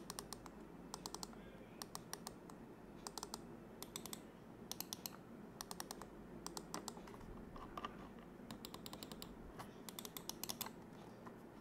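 Thunderobot ML701 wireless mouse buttons, fitted with KO micro switches, being pressed and clicking. The clicks are faint and sharp and come in quick runs of a few, about every second.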